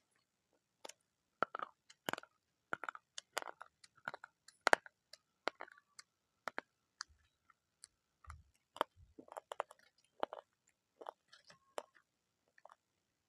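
A person biting into and chewing crunchy food: a run of sharp, irregular crunches, with a few dull low thumps about two-thirds of the way through.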